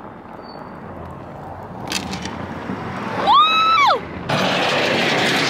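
Car cabin noise while driving on snowy roads, building slowly. At about three seconds in there is a short high squeal that rises and falls, and just after four seconds a louder steady rushing noise sets in.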